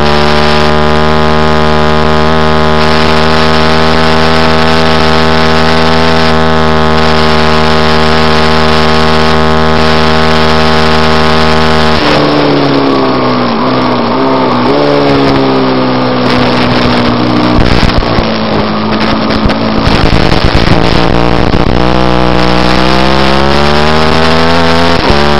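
Middleweight supersport racing motorcycle engine heard onboard, held flat out at a steady high pitch. About halfway it shuts off and falls in pitch through downshifts under braking, with a few pops. Then it climbs again as the bike accelerates hard, with a quick upshift near the end.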